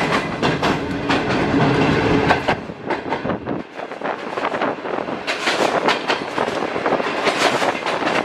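Wheels of a moving passenger train clattering over the rail joints, heard from on board: a quick, uneven run of sharp clicks over a rumble. The low rumble drops away about three and a half seconds in, leaving mostly the clicks.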